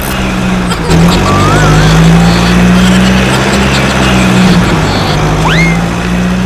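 Vehicle engine sound: a steady low drone that dips briefly in pitch about four and a half seconds in. A few short whistle-like tones rise and fall over it.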